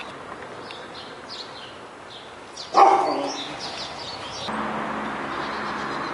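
A dog barks once, loudly, about three seconds in, over quiet outdoor ambience with small bird chirps. About a second and a half later the background changes to a steadier hum.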